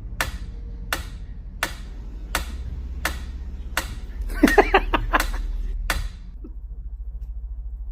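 Sharp clicks at an even pace, about one every 0.7 seconds, stopping about six seconds in, over a low steady hum, with a brief wavering pitched sound in the middle.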